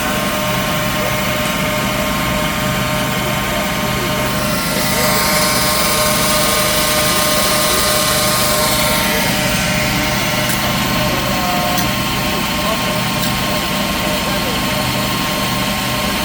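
Workshop machinery running steadily, a motor drone of several held tones, with a louder rushing hiss from about five to nine seconds in.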